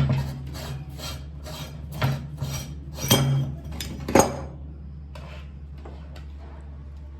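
Rapid, repeated metal-on-metal strokes with clinks and scraping, about three a second, stopping a little past the midpoint, over a steady low hum.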